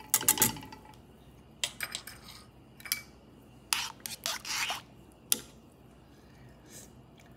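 A metal wire whisk and a spoon scraping and clinking against a stainless steel saucepan as they stir a thickening cornstarch sauce. The sound comes in a few short strokes with pauses between them, and the strokes stop about five and a half seconds in.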